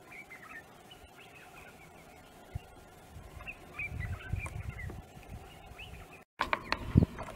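Small birds chirping repeatedly in the background, with a low rumble through the middle. After a brief break near the end comes a short run of sharp knocks, the last of them the loudest sound.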